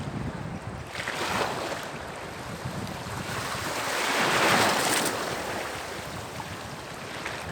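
Sea waves breaking and washing ashore, one wave building to a loud surge about four and a half seconds in and then falling away.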